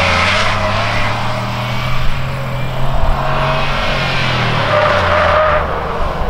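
Cadillac Escalade's V8 running steadily under load through a tight corner, while the tires scrub and squeal on and off as the heavy SUV pushes wide in understeer.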